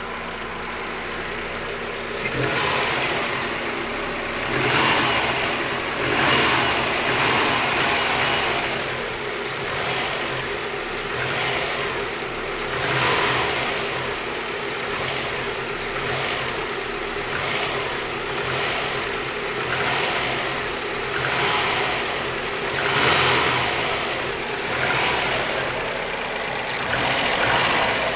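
Subaru WRX flat-four engine, a new short block with 600 miles on it, idling and then revved in repeated short swells every couple of seconds from about two seconds in. It makes a knock that the owner suspects may be piston slap.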